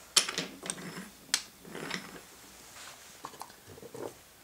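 Wooden toy train cars being handled and set down on a wooden floor: a scatter of light clicks and knocks, the sharpest about a second and a half in.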